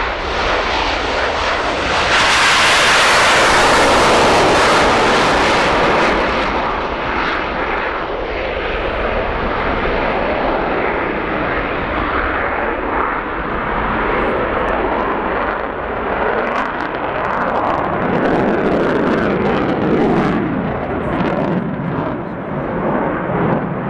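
Jet noise from a Sukhoi Su-27P's twin AL-31F turbofans during a flying display. It is loudest and most hissing about two to six seconds in, then settles to a steadier rush that swells and fades as the fighter moves around.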